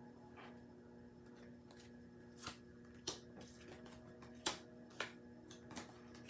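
A small deck of oracle cards being shuffled by hand, with about six crisp card snaps at uneven intervals over the second half, over a faint steady hum.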